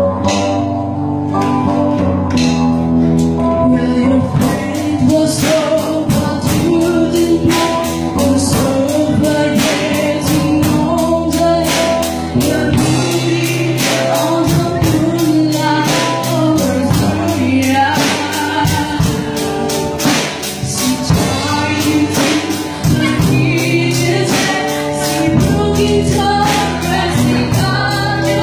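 A school choir of young teenagers singing together to a strummed acoustic guitar. A steady strummed beat comes in about four seconds in.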